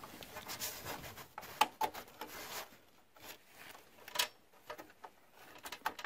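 Light rubbing and scattered small clicks and taps as a DDR RAM stick is handled and lined up against a motherboard memory slot, with a sharper tick a little past the middle.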